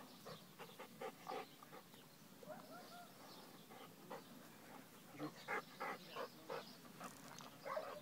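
Faint dog barking in short, quick barks: a run of several about a second in, and another of about five barks roughly three a second between five and six and a half seconds in.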